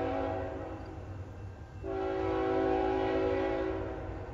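Air horn of an approaching CN freight locomotive sounding a grade-crossing signal: the end of one long blast fades out, then after a pause of about a second and a half a second long blast sounds for about two and a half seconds, and the next short blast begins at the very end. A steady low rumble lies underneath.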